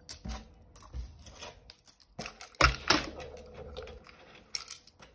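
Costume jewellery clicking and clinking as pieces are handled and set down on the tray, a run of separate small knocks with the loudest about two and a half seconds in.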